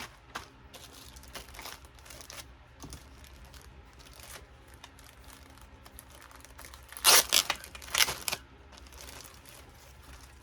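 Packaging from a lace grab bag being handled and pulled open: soft rustling throughout, with a few short, louder bursts of rustling about seven to eight seconds in.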